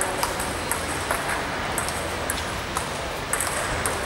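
Table tennis rally: the ball clicking off the paddles and bouncing on the table, about two sharp hits a second at an uneven rhythm, over steady hall noise.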